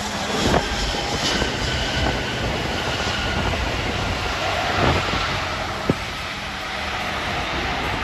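Airbus A320 jet engines running with a steady rumbling roar, with faint steady whining tones and a few short knocks on the microphone.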